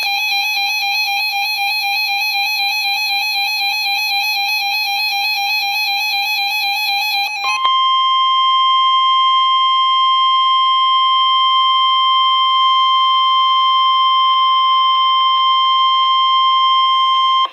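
Emergency Alert System attention signal: a loud, harsh two-tone warbling alarm that switches abruptly about seven and a half seconds in to a single steady tone, the NOAA Weather Radio warning alarm, which marks the start of an emergency warning broadcast.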